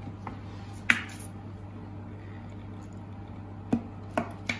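Sauce being squeezed from a squeeze bottle onto a tortilla: a sharp click about a second in, then three short clicks and splutters close together near the end, over a steady low hum.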